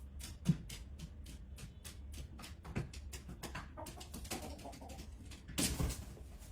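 Quick, even clicking, about four clicks a second, of a rooster's claws on a hard floor as it walks. A low thump comes about half a second in, and a louder rustling burst comes near the end.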